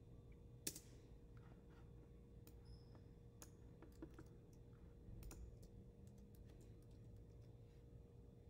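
Faint computer keyboard typing: scattered key clicks, the sharpest about a second in, over a faint steady hum.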